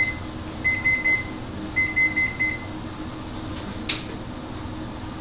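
Gas range's oven timer beeping, three quick beeps at a time repeated about once a second, signalling the bake time is up; it stops about halfway through. About a second later there is a single sharp click as the oven door is pulled open.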